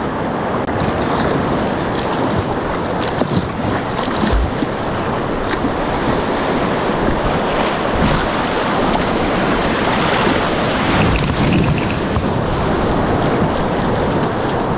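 River rapids rushing loudly and steadily around a canoe as it runs through the run-out at the tail of a whitewater rapid, with a couple of low thumps partway through.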